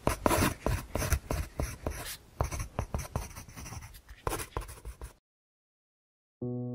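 Pen scratching on paper in a quick run of irregular handwriting strokes that cuts off suddenly about five seconds in. After a second of silence, soft piano music begins near the end.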